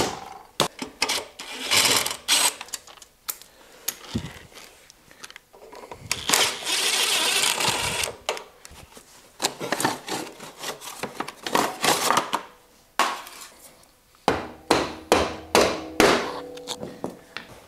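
A cordless drill-driver runs for about two seconds near the middle, backing out a motorcycle's rear chain adjuster bolts. Sharp clicks and knocks of tools on the bike come before and after it, with a quick run of them near the end.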